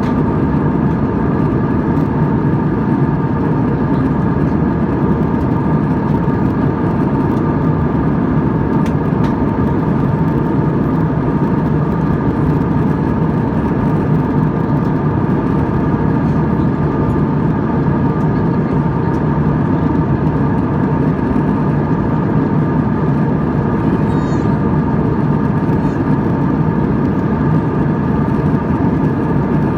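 Steady jet engine and airflow noise heard inside an airliner cabin in cruise: an even, deep rush with a few steady whining tones above it.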